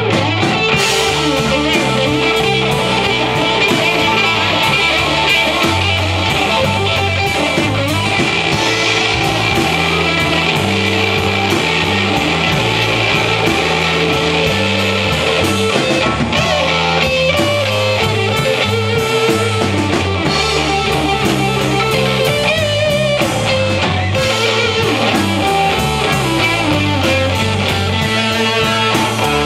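Live blues band playing an instrumental break: amplified harmonica held to the microphone plays long, bending notes over electric guitar, electric bass and drums.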